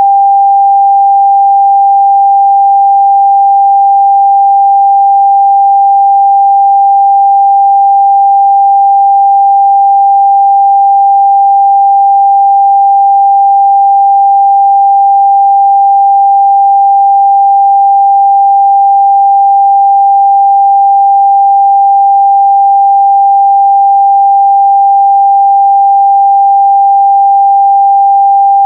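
A pure 794 Hz sine-wave test tone, held steady and loud at one pitch with no other sound.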